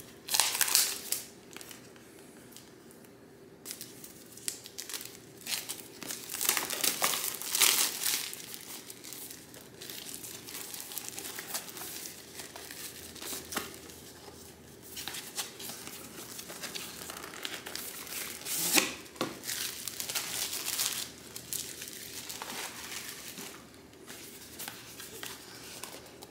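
Packaging crinkling and tearing by hand, on and off, as a product box is unpacked.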